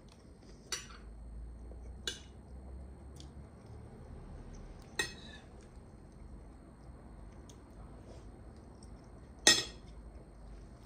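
Metal fork clinking against a ceramic plate of pasta: four separate clinks spread out, the loudest near the end.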